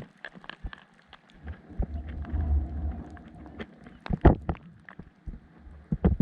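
Scattered clicks and knocks, with one louder knock about four seconds in, over a low rumble near the middle.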